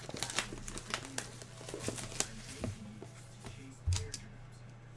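Plastic shrink-wrap crinkling and crackling as hands tear it off a sealed trading-card box, followed by a dull thump about four seconds in as the box is handled.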